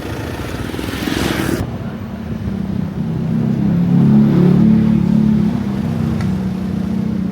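A motor vehicle engine running close by, its low hum swelling about four seconds in and then holding steady, after a brief burst of broad noise at the start that cuts off suddenly.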